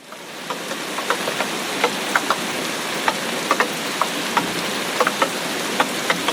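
Heavy tropical rain falling steadily: a dense hiss, with irregular sharp drops striking a nearby surface several times a second. It fades in at the start.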